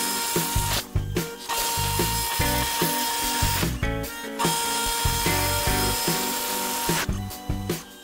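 CNC router milling a plastic panel: a spindle cutting with a rattling, ratchet-like chatter, under background music with a steady beat. The sound drops out briefly about a second in and again near the end.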